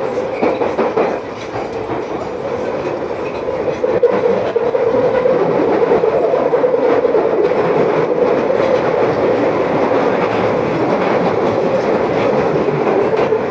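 London Underground Piccadilly line 1973 Stock train running through a tube tunnel, heard from inside the carriage: a loud, steady rumble of wheels on rail with a droning tone and occasional clicks from the track. It grows louder about four seconds in.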